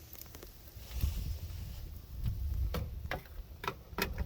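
A person eating pizza close to the microphone: irregular crunching clicks from biting and chewing the crust, over a low rumble.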